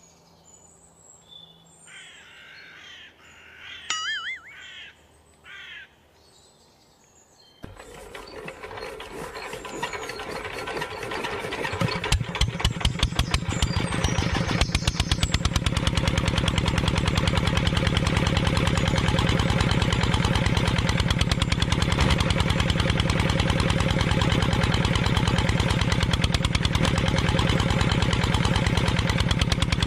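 Mini single-cylinder diesel engine starting about a quarter of the way in, its even knocking beat building over several seconds, then running steadily and loudly while it drives a belt-driven juicer. Faint bird chirps before it starts.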